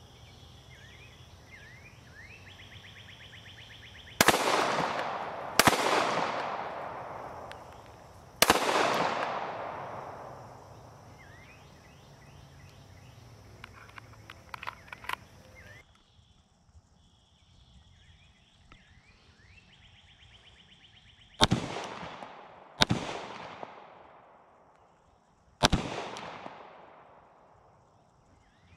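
Glock 19 MOS 9mm pistol fired six times in two strings of three, the shots about one and a half to three seconds apart, each followed by a long echoing decay. A few light clicks come between the two strings.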